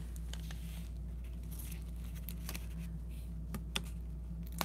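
Faint ticks and light scrapes of a pointed take-your-pick tool lifting the paper backings off small foam adhesive dimensionals, a few separate clicks spread over the seconds. A steady low electrical hum runs underneath.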